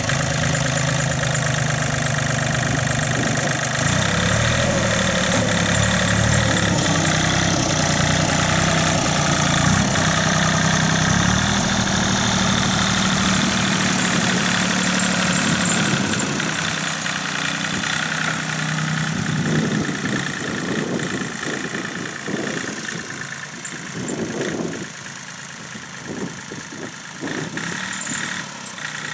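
Iseki TU-155 compact tractor's small diesel engine running while it pushes earth with its front dozer blade, the engine note shifting in pitch with the throttle and load. After about halfway it grows fainter as the tractor drives away, with a few short knocks.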